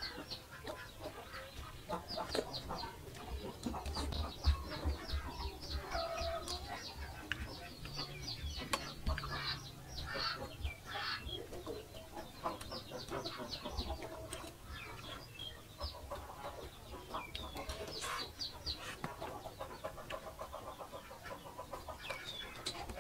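Chickens clucking, with quick runs of short high chirps throughout.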